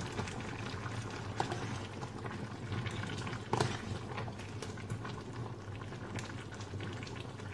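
A saucepan of vegetable stew bubbling steadily at a boil, with a few short clicks of a metal spoon against the stainless steel pan as it is stirred.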